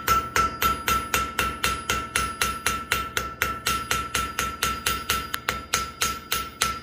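Blacksmith's hand hammer striking steel bar on an anvil in a fast, even rhythm of about four blows a second, with a clear anvil ring held through the blows, while feather texture is worked into the forged woodpecker's tail. The blows get slightly softer as they go on.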